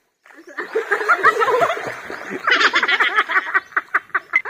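Women laughing, after a brief silent gap at the very start. The laughter breaks into quick repeated bursts from about halfway through.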